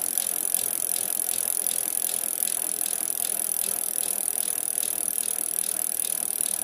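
Bicycle freewheel hub ticking rapidly and evenly as a wheel spins without pedalling, over a steady high hiss.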